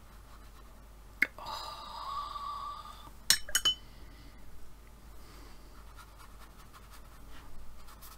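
Paintbrush being rinsed in a glass water jar: a single click, a rubbing ring against the glass lasting about a second and a half, then a few sharp clinks as the brush taps the jar. Faint brush strokes on watercolour paper follow.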